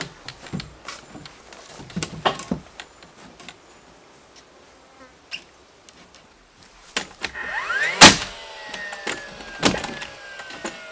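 Cordless nail gun driving nails into timber boards: its motor winds up with a rising whine, a nail fires with a sharp crack, and the motor spins down with a falling whine. A second nail fires a second and a half or so later. A few knocks of boards being handled come earlier.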